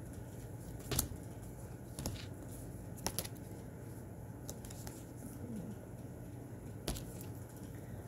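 Thick-cardstock tarot cards handled by hand as they are flipped through one by one: a few sharp snaps and clicks of card on card, spread out with gaps between them, over a steady low hum.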